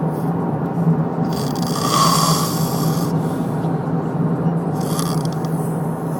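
A man snoring: a long rasping snore starting about a second in and lasting about two seconds, then a shorter one near the end, over a steady low hum.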